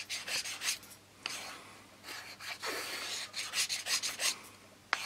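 Small hand balsa plane shaving a block of balsa wood in a run of short rasping strokes, quicker about three seconds in, with a sharp click near the end.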